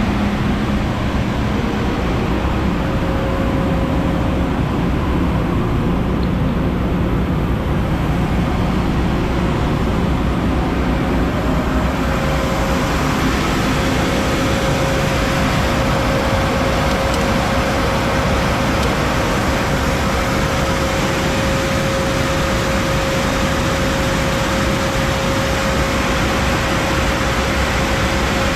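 Industrial two-head 36-inch wide belt sander running, a loud steady machine noise with a faint steady whine. A brighter hiss joins about twelve seconds in.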